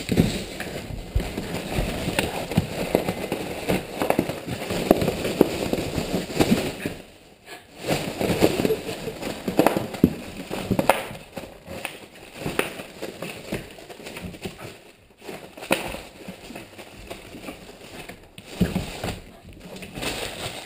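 Plastic air-pillow packaging and bubble wrap crinkling and crackling with sharp snaps as a Jack Russell terrier bites, shakes and paws at it. The racket comes in bursts, with two short lulls.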